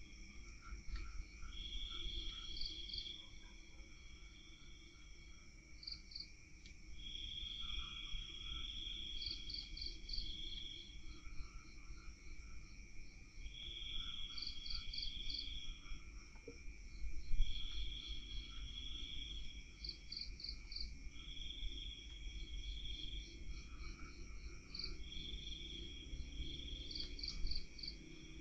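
Night insects calling: trills of a second or two repeating every few seconds, alternating with quick chirps in groups of three to five, over a steady high hum. A single sharp knock sounds about two-thirds of the way through.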